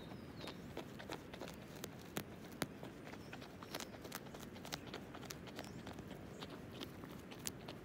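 Common wombat grazing on short lawn grass, biting off and chewing mouthfuls: a run of irregular crisp snaps and clicks, several a second, over a low steady background noise.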